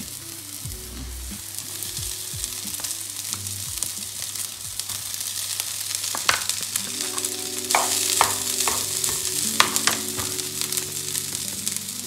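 Carrot and red onion sizzling in hot oil in a frying pan on high heat, with scattered crackles and clicks as leftover rice is dropped in by hand. The sizzle grows louder in the second half.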